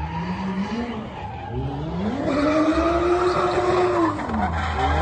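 Drift car's engine revving hard while tyres screech: the engine's pitch climbs about a second and a half in, holds high, then falls and starts climbing again near the end.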